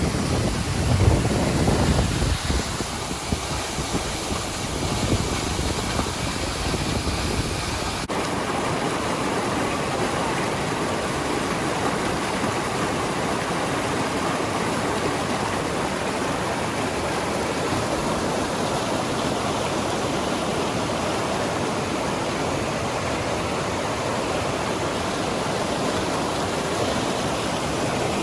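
Steady rushing roar of the Crescent Falls waterfall. In the first couple of seconds, gusts of wind buffet the microphone with a low rumble.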